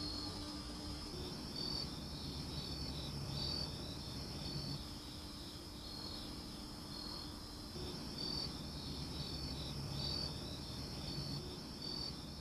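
Crickets calling: a steady high trill with short chirps repeating about once a second.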